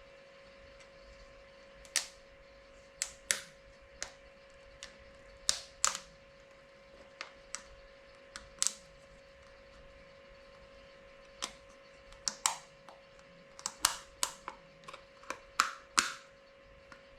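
Irregular sharp clicks and taps of packaging or small objects being handled, bunched in quick runs, over a steady low electrical hum.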